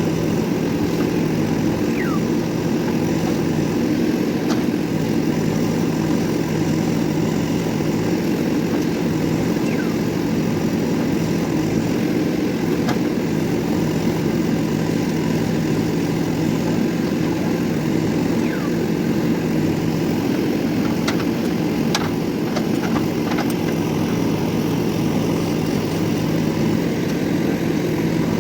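JCB 3DX backhoe loader's diesel engine running steadily as the machine works. A few short squeaks falling in pitch come through at intervals, and a cluster of light clicks and knocks sounds near the end.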